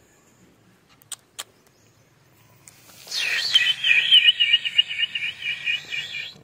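A high-pitched chirping trill, about four notes a second, played through a phone's speaker, starts about three seconds in and runs steadily until it cuts off suddenly. Two sharp clicks come just after a second in.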